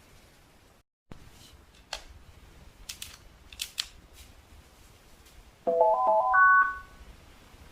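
Samsung CW-21Z503N CRT television's power-on chime: a short rising run of electronic tones near the end, after a few faint clicks.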